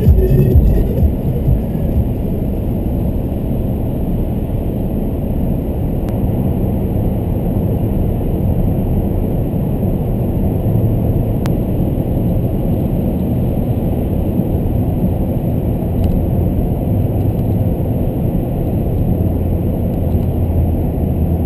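Steady low road and engine noise of a car driving at highway speed, heard from inside the cabin while it travels through a road tunnel.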